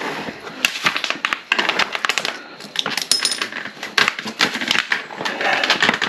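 Irregular clicking and clattering of small hard parts and tools being handled, many sharp clicks throughout.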